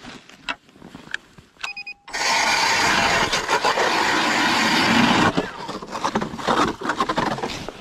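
StrikeMaster Lithium 40V battery-powered ice auger drilling a hole through lake ice: a short tone, then the auger starts suddenly about two seconds in with a loud, steady grinding for about three seconds. After that it drops to a quieter, uneven noise with knocks.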